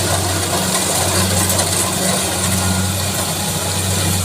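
Rice reaper's engine running steadily, a constant low hum.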